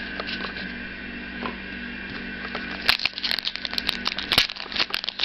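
Steady background hum with a few faint taps as a stack of trading cards is handled. Then, from about three seconds in, loud crinkling and crackling as the foil wrapper of an Allen & Ginter card pack is torn open.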